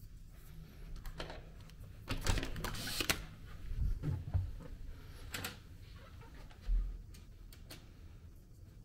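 Hotel room door being unlocked and opened: a series of sharp clicks and knocks from the electronic keycard lock and lever handle, then a low thump about two-thirds of the way through.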